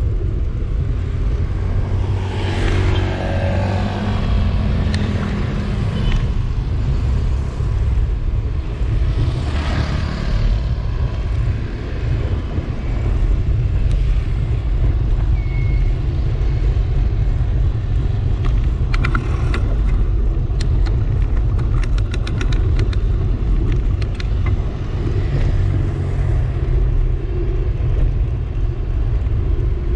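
Steady low rumble of wind buffeting the microphone and road noise from a moving bike. A vehicle passes with a falling pitch a few seconds in, another passes about ten seconds in, and a patter of quick clicks comes about two-thirds of the way through.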